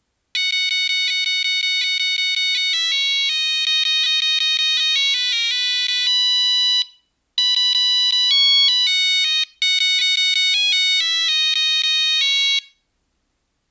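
Nokia 3310 monophonic ringtone: a fast melody of single beeping notes, one pitch at a time, with a short pause about halfway through.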